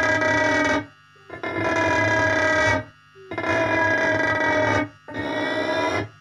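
Stratocaster-style electric guitar imitating a pig snoring: a rough, buzzing held note played in repeated drawn-out strokes of about a second and a half each, with short gaps between them, four times.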